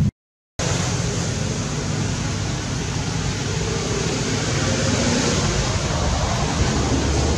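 Steady, even rushing noise with no distinct events, broken by a half-second of dead silence just after the start.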